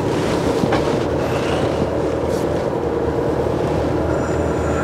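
Motorhome driving slowly, with a steady engine and road rumble heard from inside the cab.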